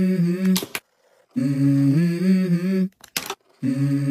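A voice humming a wordless melody with no accompaniment, in three phrases of held low notes with short pauses between them. Sharp clicks fall in the gaps, one under a second in and one a little past three seconds in.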